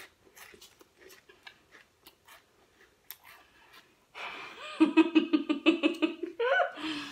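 Faint crunching of Pringles potato chips being chewed, then a little over four seconds in a woman laughs with her mouth full: a quick run of pulsed 'ha' sounds for about two seconds, trailing off into a few short rising and falling vocal sounds.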